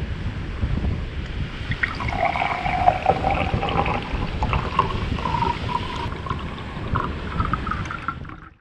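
Strong wind buffeting the microphone in a heavy low rumble, with a thin pitched tone over it from about two seconds in that holds, then steps up in pitch a few times. Both cut off abruptly near the end.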